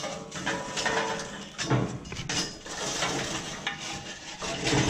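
Lit charcoal tumbling out of a chimney starter into a steel firebox charcoal basket: a continuous clatter of coals on the metal mesh, with metal scraping on metal.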